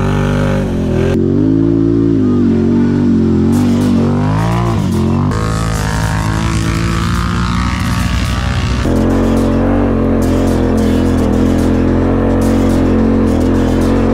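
1000 cc V-twin ATV engines revving hard under load on steep climbs, their pitch rising and falling. The engine sound changes abruptly about a second in, around five seconds and near nine seconds.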